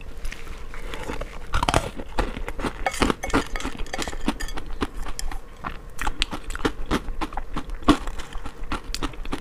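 A person chewing and crunching a mouthful of strained Greek yogurt topped with freeze-dried strawberries and crisp cereal, with many short crunchy bites.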